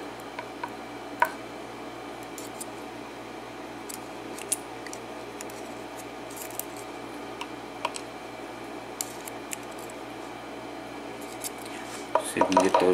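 Small metal clicks and taps of tiny lock pins and hand tools being handled while a pin-in-pin cylinder lock is disassembled, scattered one at a time. They give way to a louder flurry of handling noise near the end.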